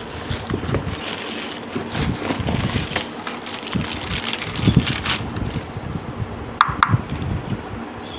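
Thin plastic packaging bags crinkling and rustling as they are pulled off and handled over an open cardboard box, with two sharp clicks about two-thirds of the way through.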